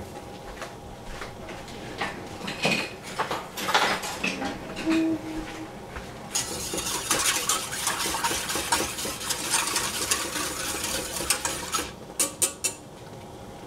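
A wire whisk stirring milk in a metal saucepan, the wires scraping and rattling against the pan in a fast, dense run for about six seconds, after scattered clicks and knocks of utensils. Near the end come four sharp metallic clinks.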